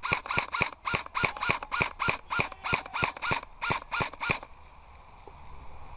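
Airsoft rifle firing a rapid string of single shots, about four to five a second, each a sharp crack with a short mechanical ring; the firing stops about four and a half seconds in.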